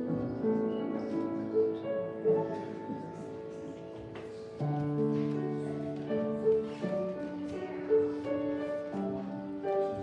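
Slow instrumental music played on a keyboard instrument: held chords with a melody moving above them, and a deeper bass note joining about halfway through.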